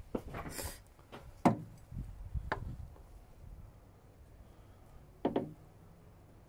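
Honda Civic EP3 engine mounts handled by gloved hands: a few knocks and clunks, the sharpest about a second and a half in and another just after five seconds, with some rustling handling noise.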